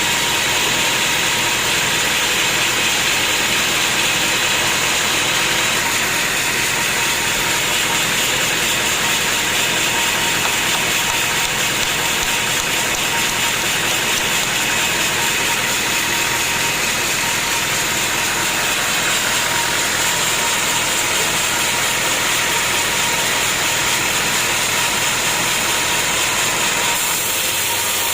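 Sawmill machinery running steadily: a constant mechanical drone with a steady high tone, changing a little near the end.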